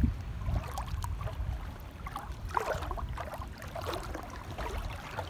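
Small water sounds, lapping, trickling and light splashes, around a boat floating in shallow seawater, over a low rumble of wind on the microphone.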